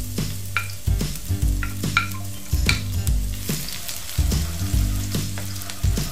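Minced garlic sizzling in hot oil in a wok as it is sautéed, stirred with a wooden spoon that scrapes and taps against the pan.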